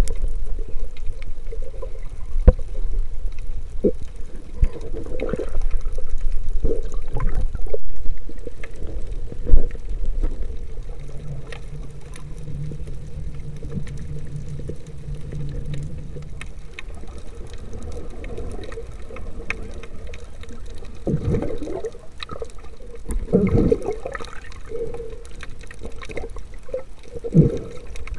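Underwater sound as heard by a submerged camera: muffled water movement and low rumble, with scattered sharp knocks, a steady low hum from about 11 to 17 seconds in, and louder swells of water noise near the end.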